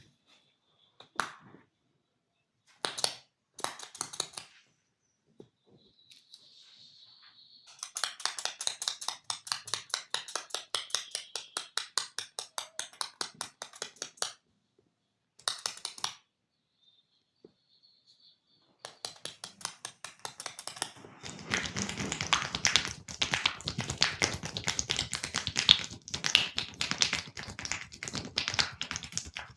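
Hands tapping and chopping rapidly on skin in a percussive massage. A few single taps come first, then runs of quick, even strikes, several a second; the longest and loudest run fills the second half.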